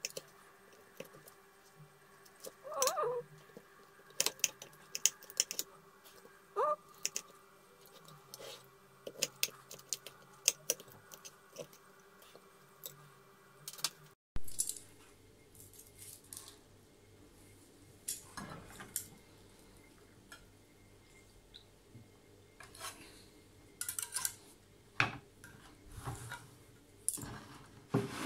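Metal tongs and a knife clicking and scraping against a glass baking dish as a roast chicken is lifted out, then against a wooden cutting board: many short, separate clicks and brief scrapes.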